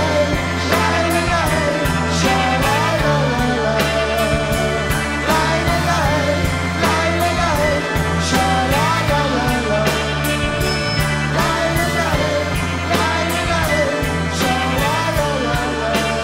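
Live rock band playing: drums keeping a steady beat, electric guitars and bass, with a string section of violins and cello, and a wavering melody line carried over the top.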